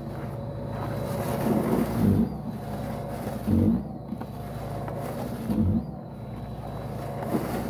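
Snapper XD 82-volt brushless snow broom running, its motor and impeller whirring steadily while it is pushed through snow, with a louder swell about every two seconds.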